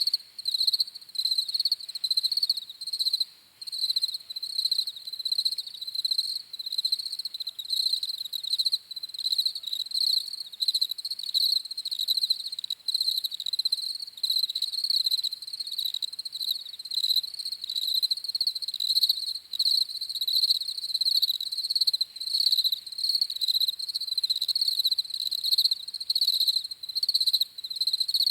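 Crickets chirping in rapid pulsing trills, a high steady chorus with no pauses.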